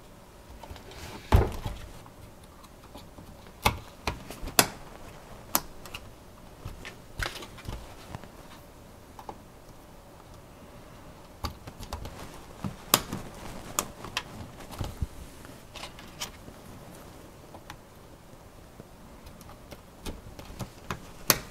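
Scattered sharp clicks and knocks of Corsair Dominator Platinum memory sticks being handled and pressed into motherboard DIMM slots, with the loudest clicks about a second in, around four seconds in, around thirteen seconds in and near the end.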